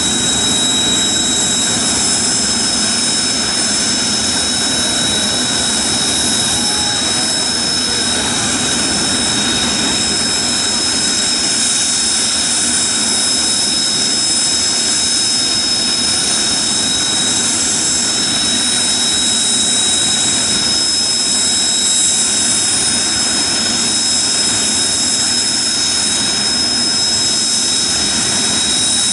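Turbofan engines of Blue Impulse Kawasaki T-4 jet trainers running while the jets stand parked on the ramp: a steady rushing noise with high, unchanging whine tones.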